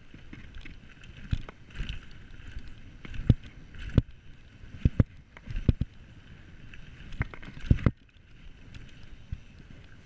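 Mountain bike rolling fast down a dirt trail: a steady rush of tyre and wind noise with irregular knocks and rattles as the bike hits bumps, heaviest between about one and eight seconds in.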